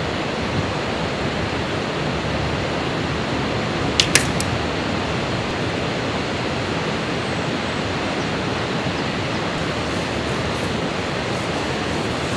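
Steady, even rushing of falling water from a waterfall and mountain stream, with two brief sharp clicks about four seconds in.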